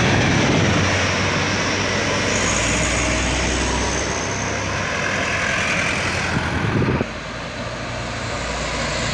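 Light diesel trucks loaded with sugarcane running under load on an uphill road, one passing close by; the sound drops suddenly about seven seconds in.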